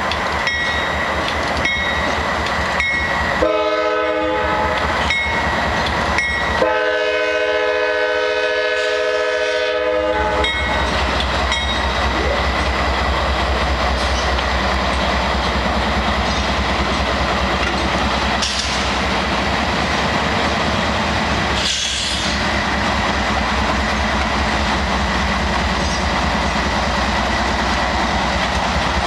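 Norfolk Southern diesel locomotive sounding its multi-note air horn twice, a short blast and then a longer one of about three and a half seconds, as it comes up to a crossing. Then its engine runs with a steady low rumble as it rolls past, with wheels clicking on the rails.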